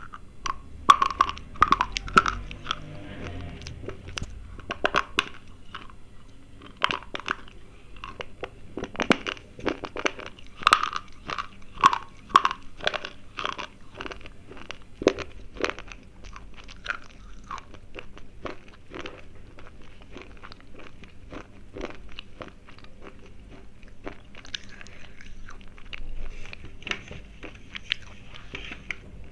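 Slate pencils being bitten and chewed: a run of sharp, hard crunches, densest and loudest in the first half. Near the end they turn into softer grinding chews.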